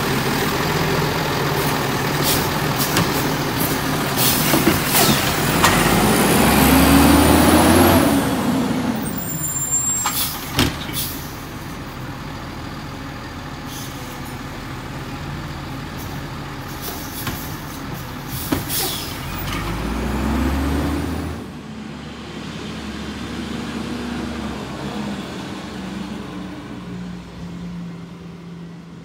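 Automated side-loading garbage truck emptying a cart: the diesel engine revs up as the hydraulic arm works, with clanks and knocks of the cart and arm. About twenty seconds in the engine revs again as the truck pulls away, then fades off.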